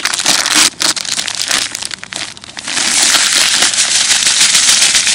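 Plastic packet of dry feeder groundbait crinkling and rustling as it is handled, then a steady rushing hiss from about three seconds in as the dry mix pours out.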